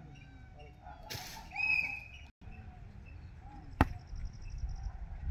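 A volleyball struck hard by a player's hand: one sharp slap about four seconds in. Before it, about a second and a half in, a brief high-pitched call, over a low rumble of wind.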